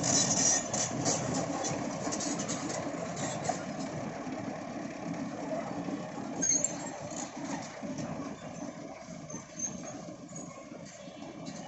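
A heavy vehicle's engine running steadily, with scattered sharp clicks and squeaks in the first few seconds and a brief high squeak about halfway through.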